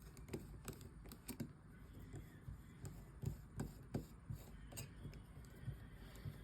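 Faint, irregular small clicks and taps of a precision Torx screwdriver and fingers working screws out of a Nokia 2730 mobile phone's frame.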